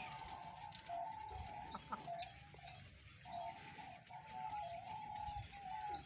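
Domestic hens clucking in a near-continuous run of short calls that step up and down in pitch, with faint clicks over them.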